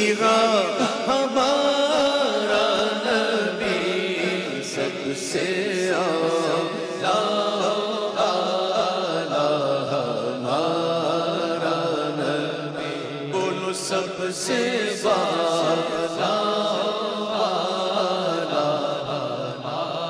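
A man singing a naat into a microphone in long, drawn-out, ornamented phrases without words. Each phrase lasts a few seconds before a fresh one begins.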